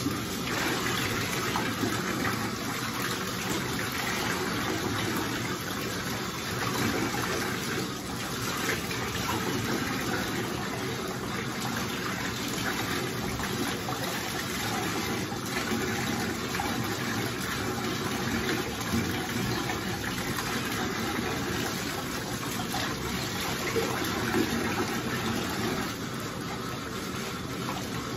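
Water running steadily in a bathtub, splashing as a wet Shih Tzu is washed under it.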